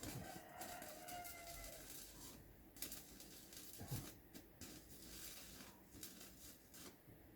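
Faint scraping and rustling in many short, irregular strokes, with a soft thump about four seconds in.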